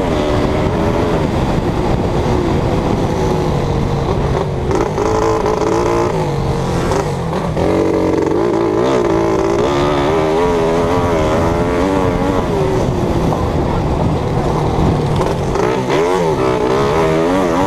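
A racing engine heard close up, revving hard, its pitch rising and dropping again and again with the throttle and gear changes.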